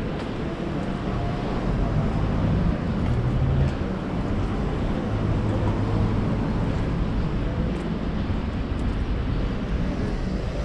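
City street traffic noise: a steady low rumble of cars, a little louder about two seconds in.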